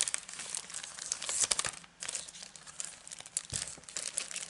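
Clear plastic packaging of a clear-stamp set crinkling and rustling as it is handled, in uneven crackles with a short pause about two seconds in.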